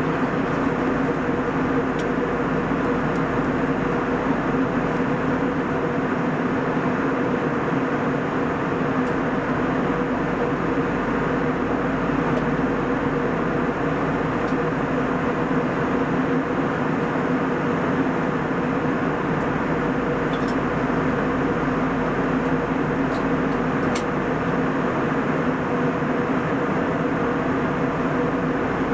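Steady cabin noise inside a Boeing 737-800 at altitude: an even rush of airflow and engine drone with a low, steady hum.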